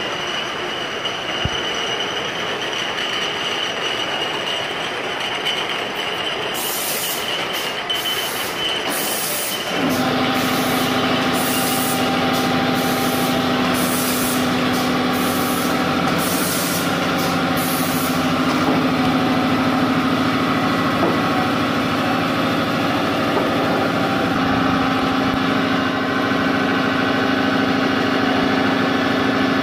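Automatic sauce-bottle labelling machine and its conveyor running with a steady mechanical hum, which turns louder and lower about ten seconds in. Short bursts of high hiss come and go through the middle stretch.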